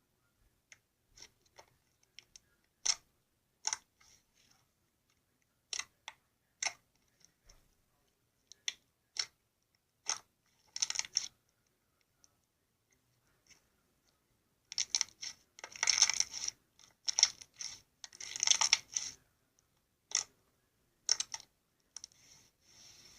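Slime being squeezed and worked by hand, giving short sharp clicks and pops: scattered single ones at first, then a brief run about eleven seconds in and dense crackling runs from about fifteen to nineteen seconds in.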